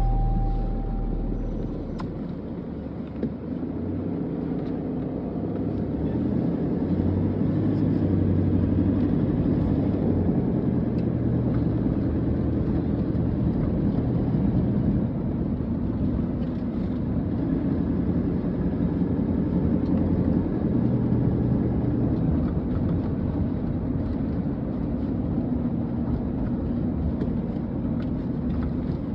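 Steady engine and road noise of a car driving along, a continuous low rumble. A music track fades out right at the start.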